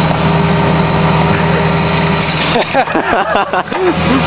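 An engine idling steadily, its even hum ending about two seconds in, followed by a short stretch of irregular sounds that slide up and down in pitch.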